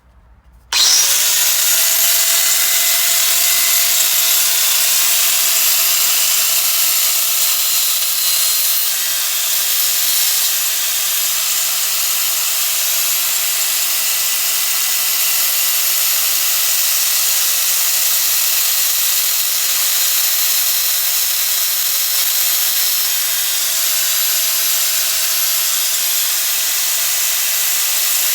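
Electric grinder sharpening a dull splitting-axe blade. It starts abruptly about a second in and runs as a steady whine with a hiss of grinding.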